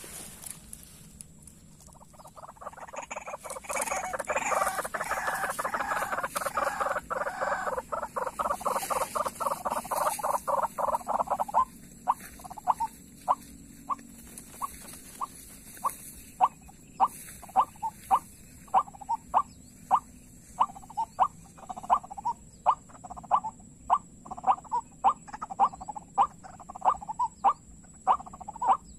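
White-breasted waterhen calling. A fast, dense chattering chorus runs from about two seconds in until about twelve seconds, then gives way to a steady series of short single notes repeated a little under twice a second.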